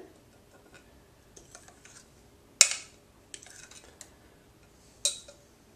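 A spatula scraping thick batter out of a glass mixing bowl into a metal loaf tin: faint scrapes and clicks, with two sharp knocks of bowl or utensil on the dish, about two and a half seconds in and again near the end.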